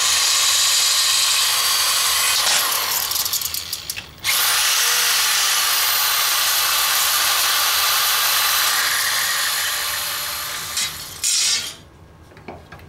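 Corded electric drill with a 3/16 inch bit boring through a metal TV-antenna boom clamped in a vise. The drill runs for about four seconds, stops briefly, runs again for about six seconds, then gives one short burst before it stops.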